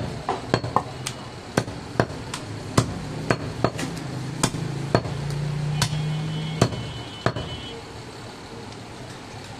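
Large butcher's chopper striking through goat meat and bone onto a round wooden chopping block: repeated sharp chops, about two a second, that stop about three-quarters of the way through. A steady low hum sounds in the background for a couple of seconds in the middle.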